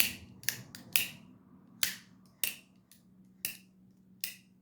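Microtech MSI folding knife on Skiff ceramic pivot bearings being opened and closed repeatedly: about seven sharp clicks of the blade swinging and locking, roughly one every half second to a second.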